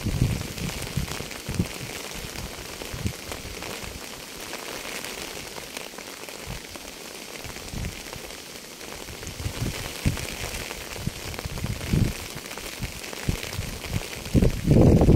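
Steady rainfall hissing, with heavy drops landing close by as short low thuds that come thicker and louder near the end.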